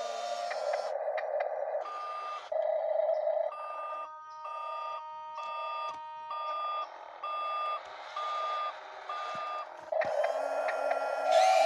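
Radio-controlled wheel loader reversing, its backup beeper sounding about one and a half beeps a second over the steady whir of its electric drive. The beeping stops near the end as the drive whir grows louder.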